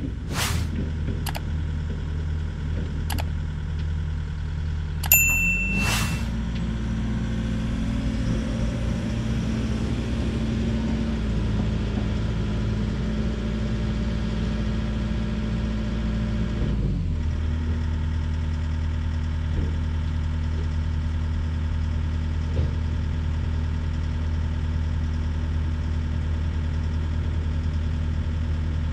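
Link-Belt 145X3E hydraulic excavator's diesel engine running steadily. About six seconds in it revs up and holds a higher speed, then drops back to a lower speed about seventeen seconds in. A few clicks and a bell-like ding come near the start.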